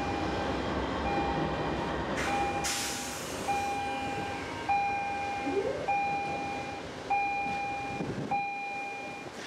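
Amtrak passenger cars rolling slowly past a station platform, their wheels and trucks rumbling with a few clunks. A steady electronic beep repeats about once a second throughout.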